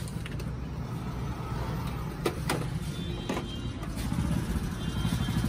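Electric heat gun blowing steadily while vinyl wrap is heated and pressed onto a motorcycle fuel tank, with a few light clicks and taps from handling about two to three and a half seconds in.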